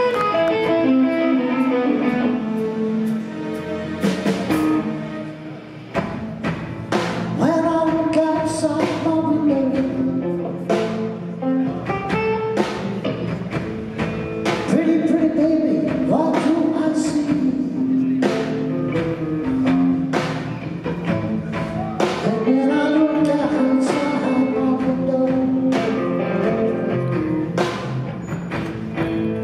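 Live rock band playing: electric guitar, electric bass and drum kit, with a voice singing over them.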